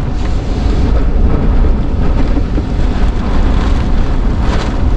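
Hurricane-force wind in a Category 4 hurricane's eyewall, a loud, continuous rush with a heavy low rumble, buffeting the vehicle and the microphone. A stronger, hissier gust comes near the end.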